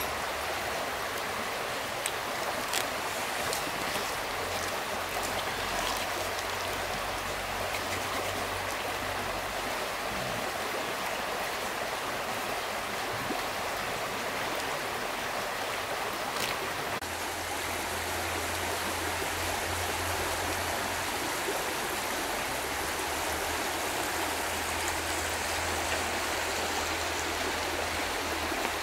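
Steady rushing of running water, like a nearby forest stream, with a few sharp crackles from a campfire in the first half.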